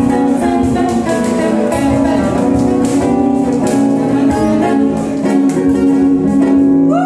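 Instrumental music on plucked string instruments, guitar-like, with notes struck in a quick, even rhythm.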